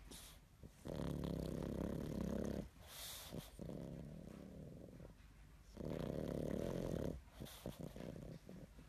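Pug snoring in its sleep: three long, loud snores about two and a half seconds apart, with soft breathing between them. This is the heavy snoring typical of a flat-faced breed.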